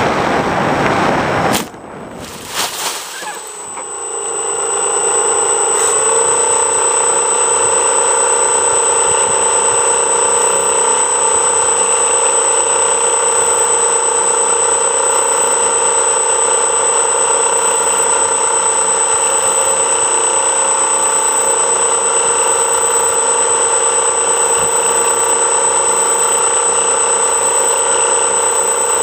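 FPV quadcopter flying low with air rushing over its microphone, cut off suddenly about a second and a half in as it comes down in the grass. After that comes an unchanging electronic hum and hiss with a thin high whine while the drone sits still.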